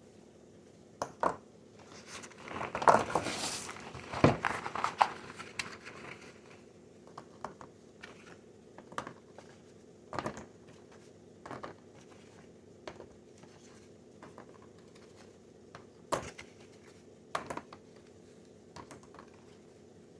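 Plastic packaging crinkling for a few seconds, then scattered clicks and knocks of containers being handled and set down, as a refrigerator is cleared out. A faint steady hum runs underneath.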